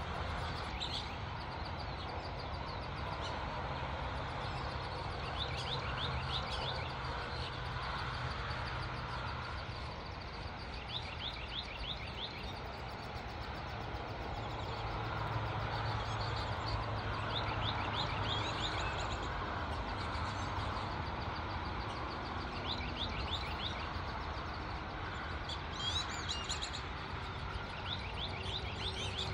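Bird chirping in short rapid trills of about five high notes every few seconds, over steady outdoor background noise with a low hum.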